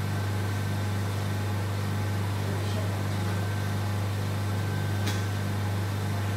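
Steady low hum of the vacuum RF body-contouring machine running, with a regular pulsing undertone and a faint click about five seconds in.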